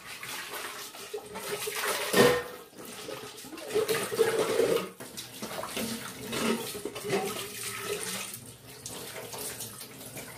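Tap water running into a sink while an aluminium pot is scoured and rinsed under it, with irregular rubbing and clattering of the pot; a sharp knock about two seconds in is the loudest moment.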